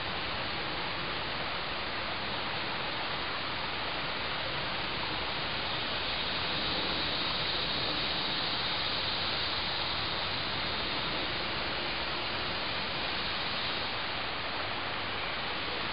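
Steady, even hiss of outdoor background noise with no distinct events, a little brighter in the upper range from about six seconds in to near the end.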